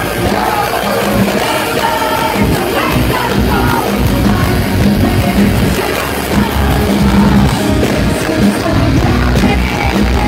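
Rock band playing live at full volume: electric guitar and drums under a male lead vocal sung into a handheld microphone.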